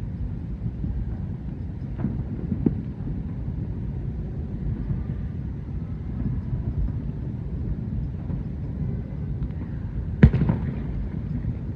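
Many distant fireworks blending into a continuous low rumble, like rolling thunder, with a few sharper cracks standing out and one louder bang near the end.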